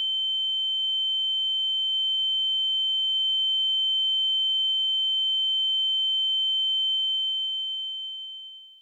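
A steady, high-pitched electronic ringing tone, the ringing-in-the-ears sound effect of a character blacking out, over a faint low rumble. It fades away over the last second or two.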